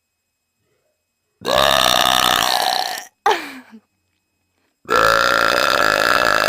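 A person belching: two long, loud burps, the first starting about a second and a half in and the second about five seconds in, with silence before and between them.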